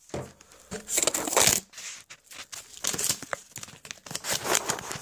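Irregular bursts of rustling and crinkling, with a brief squeak about three seconds in.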